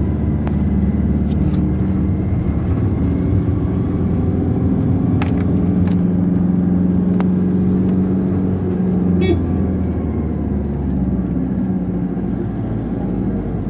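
Steady engine and road noise of a car in slow city traffic, heard from inside the cabin, with a few faint clicks.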